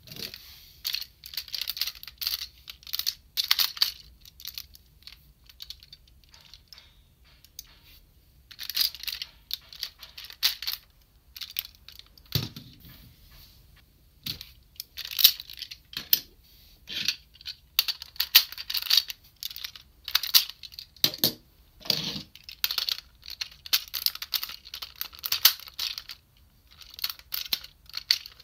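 Hard plastic parts of a DX Diesel-Oh toy robot clicking, snapping and rattling as they are handled and fitted together, the train cars locking onto the arms. The sound comes in irregular flurries of sharp clicks, with a few duller knocks around the middle and later on.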